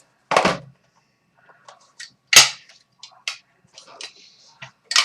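Sharp snaps and crinkles of trading-card packaging being handled and opened, with a loud snap about half a second in, a louder one a little over two seconds in, and lighter clicks between.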